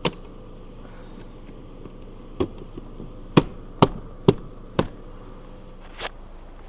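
Seven sharp clicks: one right at the start, five in quick succession in the middle, and one near the end, over a faint steady hum.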